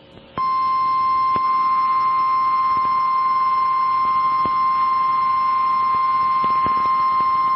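Emergency Alert System attention tone on radio: one long steady tone that starts about half a second in, signalling the start of an emergency alert, here a tornado warning.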